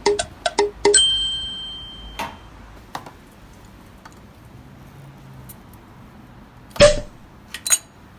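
A short run of quick struck notes ends about a second in with a bright bell-like ding that rings for over a second, in the manner of an edit jingle. After it come a few sparse clicks, a loud knock near the end and a small metallic clink.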